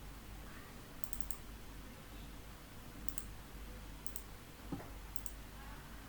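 Faint computer mouse clicks in quick doubles and triples, about a second apart, over a low steady hum.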